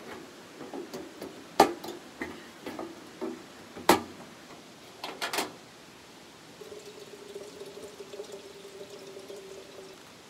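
Hard knocks and clanks from a folding two-burner camp stove being opened and set up: a few sharp knocks, the loudest about a second and a half and four seconds in, with a pair just after five seconds. From the middle to near the end a faint steady tone hums.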